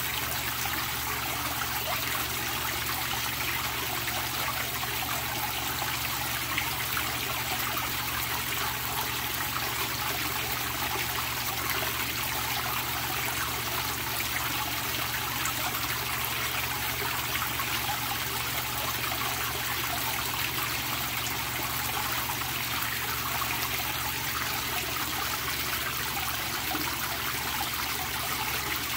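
Water pouring from a pipe into a koi pond, splashing steadily on the surface in an unbroken rush that stays level throughout.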